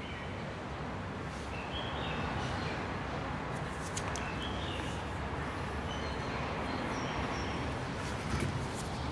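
Steady background noise with faint, short high chirps scattered through it.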